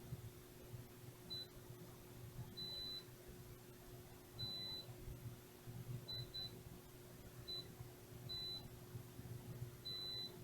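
Multimeter continuity beeper sounding eight short, high beeps of uneven length as the probes touch the filter components on a PS4 Slim motherboard, each beep showing a connection through the part. A faint steady low hum runs underneath.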